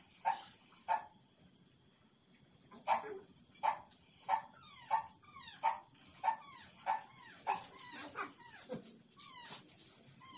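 A dog yapping: a run of about a dozen short yaps, roughly one every two-thirds of a second, thinning out near the end.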